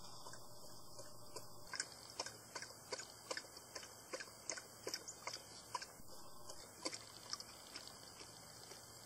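A series of light, irregular clicks, about two or three a second, starting about two seconds in and dying away near the end, over a steady faint high hiss.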